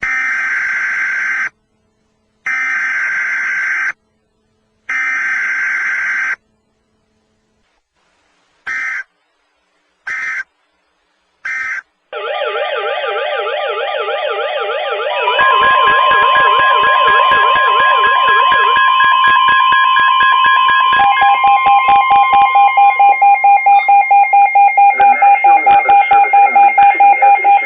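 NOAA Weather Radio emergency alert: three long bursts of screechy SAME data tones and then three short bursts, followed by weather radio alert alarms. These are a warbling siren tone, a steady 1050 Hz attention tone from about 15 seconds in, and a rapid pulsing beep from about 21 seconds in. Together they herald a severe thunderstorm warning.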